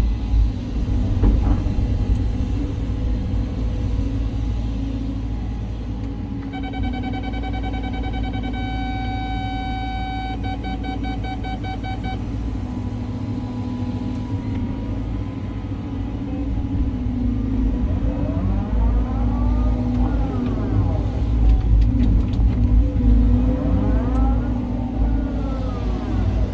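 Caterpillar 323 hydraulic excavator's diesel engine running steadily under load, with hydraulic whine that rises and falls as the boom and bucket work. About a quarter of the way in, a steady electronic beep sounds for several seconds, then breaks into rapid pips.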